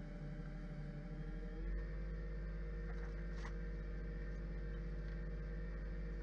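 Wood lathe motor running steadily with a steady hum, spinning a yew bowl while it is hand-sanded. Its pitch steps up slightly about two seconds in.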